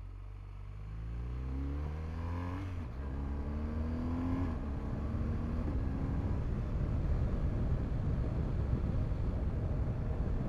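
BMW R 1250 GS boxer-twin engine accelerating hard: its pitch climbs, drops with an upshift a little under 3 seconds in, climbs again, and drops with another upshift around 4.5 seconds. After that a steady rush of noise builds and covers the engine as speed rises.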